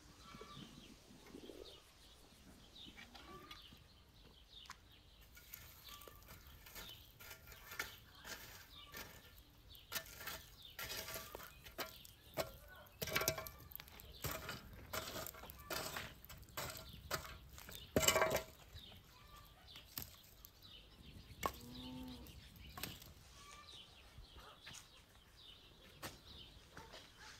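A scatter of sharp clicks and knocks from hands-on outdoor work, the loudest a single knock just past the middle. About two-thirds of the way through, a cow moos once, briefly.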